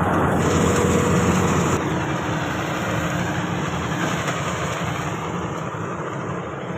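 Engine of a rice combine harvester running steadily, gradually getting quieter.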